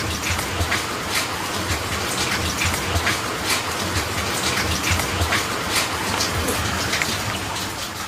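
Steady rain falling, with many separate drop hits close by standing out from the even hiss a few times a second.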